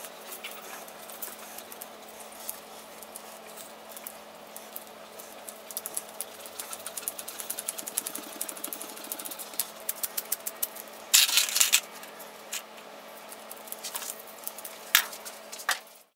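Gloved hands scrubbing rust off the steel plate of an old back saw: quick scratchy rubbing with many small clicks over a low steady hum. About eleven seconds in there is one brief loud scrape, and near the end a sharp knock.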